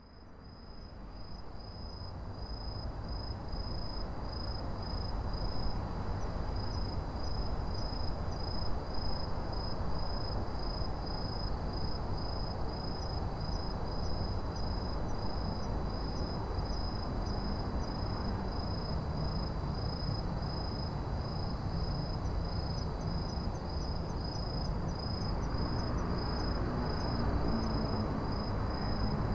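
Autumn crickets chirping in a steady, even pulse of high notes, about two a second, over a continuous low rumble of city traffic. A passing vehicle's engine grows louder in the second half.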